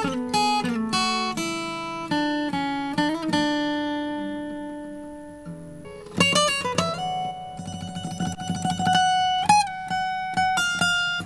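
Acoustic guitar phrase of plucked notes, each left to ring and fade, with a quick flurry of strummed strokes about six seconds in. The recording is being played back through a compressor set to a long release time.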